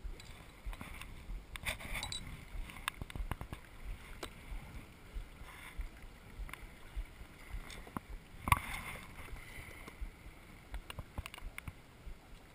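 Kayak paddling on open water: paddle strokes and water sounds with scattered small clicks and knocks, and one louder knock about eight and a half seconds in.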